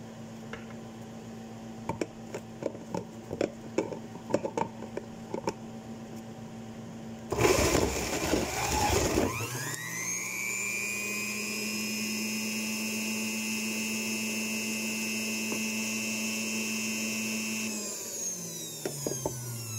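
Clicks and knocks of fruit being handled for the first several seconds. An electric juicer's motor then starts with a loud grinding burst as oranges are pushed into it, rises to a steady high whine, and winds down with falling pitch near the end.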